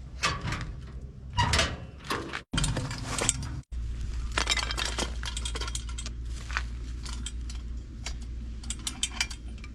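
Camp cooking gear and kindling being handled: a string of short clinks, knocks and clatters, over a steady low rumble.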